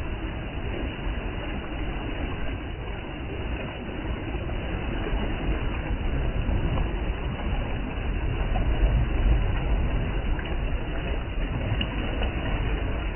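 Sea waves washing and foaming over shore rocks: a steady rushing surf with a heavy low rumble, swelling a little about two-thirds of the way through.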